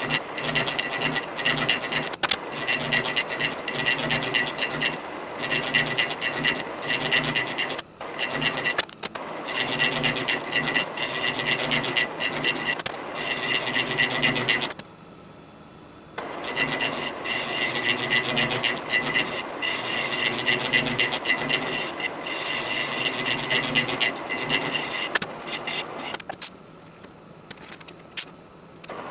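Hand file worked in repeated strokes against a steel part, about one stroke a second, with a steady high tone underneath. The strokes stop briefly twice.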